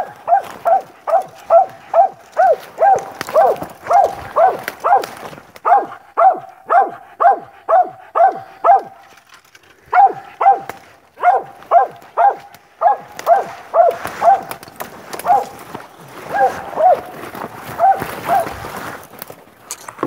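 A coon-hunting dog barking steadily at a tree, about two barks a second with a short break about nine seconds in. This is his tree bark, the sign that he has an animal up the tree.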